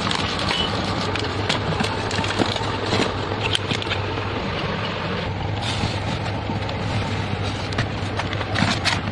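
Plastic cat-food pouches and treat bags crinkling as a hand handles them, scattered crackles over a steady whooshing background with a low hum.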